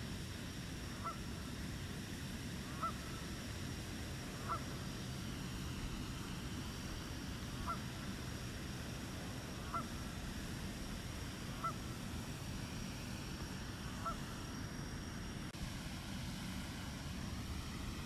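A bird gives short, honk-like calls seven times at intervals of about two seconds, over a steady low background rumble. Near the end a drone rising in pitch comes in.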